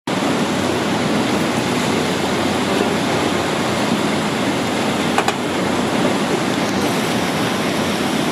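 Steady roar of the Rhine Falls and rushing river water, heard from an open tour boat heading toward the falls, with one short click about five seconds in.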